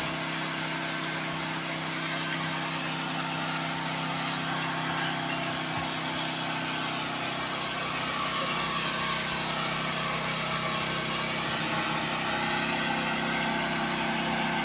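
Generator engine running steadily, a constant drone that gets slightly louder about halfway through.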